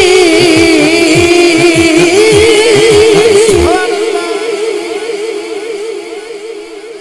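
Live naat singing: a man's voice holds one long sung note with a wavering pitch over steady drum beats, about three a second. The drumming stops about four seconds in, and the held note fades away.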